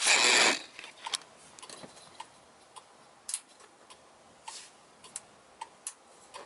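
A loud rustling burst in the first half second, then a Volkswagen Type 3's turn-signal flasher relay clicking repeatedly, about one to two clicks a second, with the left turn signal switched on.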